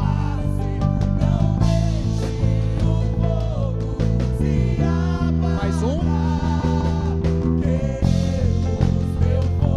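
Live worship band playing a rock-style song: electric bass holding low sustained notes that change every second or two under guitar, drums and a singing voice.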